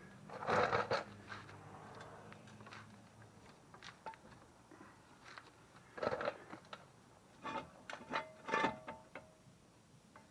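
Scattered metallic clanks and taps as hand tools and a sway bar end link are worked into place under the car. A few of the knocks near the end ring briefly.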